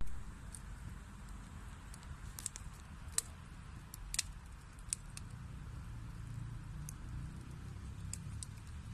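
Wood fire burning in a fireplace: a steady low rush of flames with scattered crackles and pops, the sharpest few snaps in the middle.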